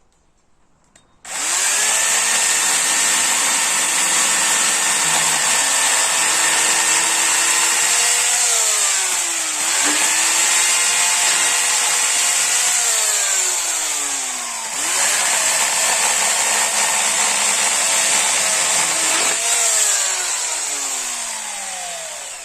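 Chainsaw started and run in three bursts. Each time it speeds up quickly to a steady high whine, then the pitch slides down as it winds off.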